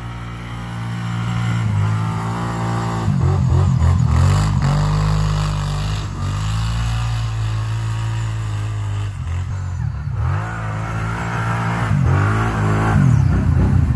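Kawasaki Brute Force 750 ATV's V-twin engine revving up and down repeatedly as it is ridden hard, its pitch climbing and dropping several times.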